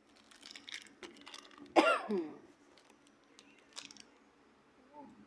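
A pet bird gives one loud, short, harsh call with a steeply falling pitch about two seconds in, among light clicking and rustling. A faint chirp follows near the end.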